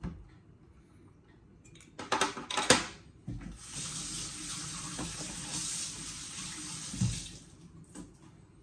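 Water running from a tap into a sink for about four seconds. It is preceded by a brief loud clatter, and there is a knock near the end.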